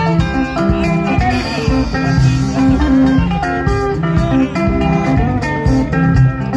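Sungura band playing: fast, interlocking plucked guitar lines over a repeating bass line and a steady drum beat.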